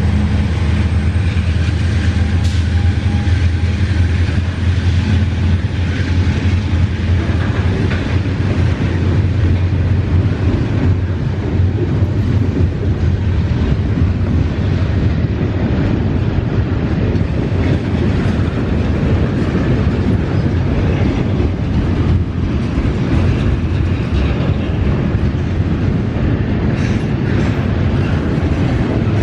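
Double-stack container freight train rolling past close by, a steady rumble with wheels clicking over the rail joints. The diesel locomotive's low engine hum weakens over the first few seconds as the container cars follow.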